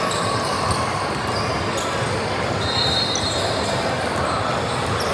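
A basketball bouncing on an indoor court amid a steady echoing gym din of voices, with a brief high squeak about three seconds in.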